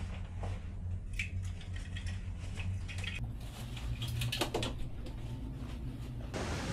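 Small clicks, knocks and rustles of someone getting ready to leave in a small entryway, over a steady low hum, with a cluster of louder handling sounds a little past the middle.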